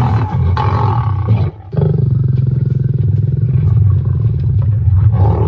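Lions growling during a fight, a deep continuous rumble that breaks off briefly about a second and a half in, then carries on.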